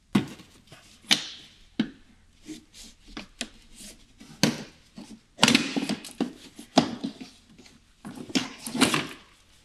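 Plastic windscreen cowl panel being handled and worked loose by a gloved hand: a string of sharp plastic clicks and knocks with scraping and rustling between them.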